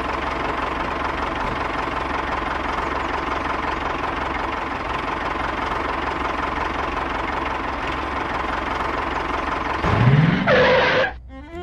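Tractor engine running steadily, with a low rumble and a faint steady whine. About ten seconds in, a short, loud rising sound breaks in and then stops abruptly.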